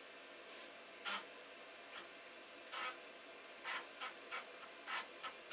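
A 1.2 GB IDE hard drive seeking as the Amiga reboots from its new partitions: about eight short, irregular scratchy bursts, faint over a steady hiss.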